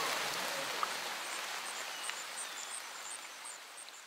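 Steady rain ambience from Lumion's sound effects, with small high bird chirps over it, fading out steadily.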